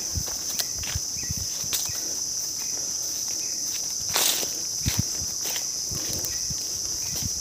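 Footsteps of a hiker walking up a forest trail, irregular soft thuds, with a louder scuff about four seconds in. Behind them, a steady high-pitched chorus of insects.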